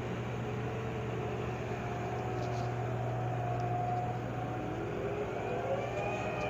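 Floating crane machinery running with a steady low hum. About five seconds in, a whine starts rising in pitch as the machinery speeds up.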